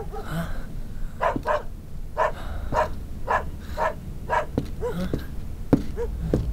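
A dog barking over and over in short barks, about two or three a second at times, some trailing into small yelps. A single sharp knock sounds near the end.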